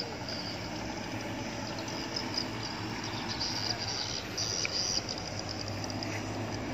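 Insects trilling in a high band that swells and fades, over a steady low hum of vehicle engines.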